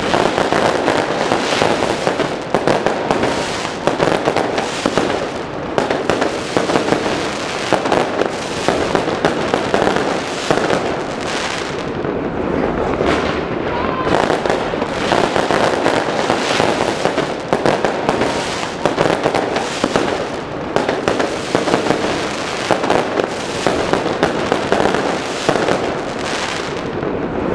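Fireworks going off in a dense, continuous barrage of bangs and crackling pops, with no pause.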